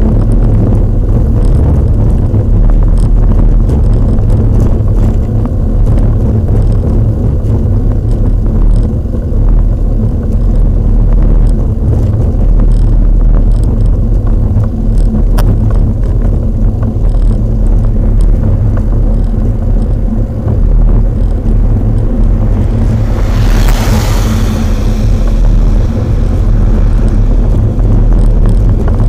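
Steady low wind rumble on a bike-mounted camera's microphone. About three-quarters of the way through, a car passes close by, its tyre and road noise swelling and fading over a couple of seconds.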